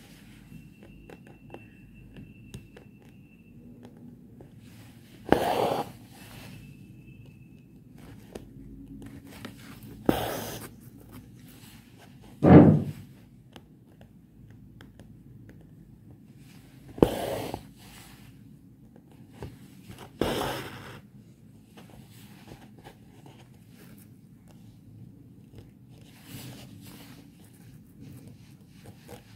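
Doubled embroidery thread drawn through fabric stretched in an embroidery hoop, one stitch at a time: five loud scraping pulls a few seconds apart, each under a second long, with faint handling sounds between.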